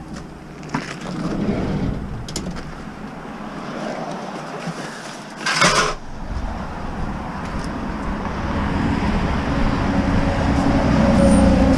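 Road traffic going by, with a low rumble that builds toward the end as a vehicle approaches. About halfway through there is one short, loud clatter.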